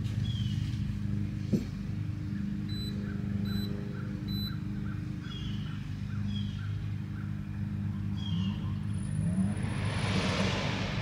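Passenger-side electric radiator cooling fan running steadily, commanded on at 20% duty cycle by a scan-tool active test with the engine off, a low even hum. This fan responds to the command. A rushing noise swells near the end.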